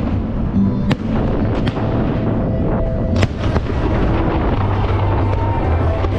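Aerial fireworks bursting, with a few sharp bangs about a second in and again near the middle, over dense crackling. Music from loudspeakers plays under the bursts.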